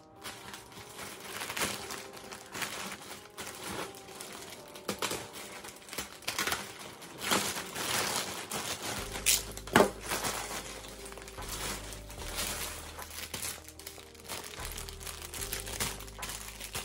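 Plastic mailer bag and clear plastic wrapping crinkling and rustling as hands open a package and pull out its contents, in an irregular run of rustles with one sharper crackle about ten seconds in.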